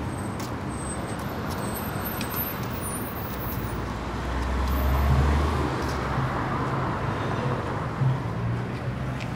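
City street traffic: a steady hiss of passing cars. About halfway through, one vehicle's low engine rumble swells and passes, and its hum lingers afterwards.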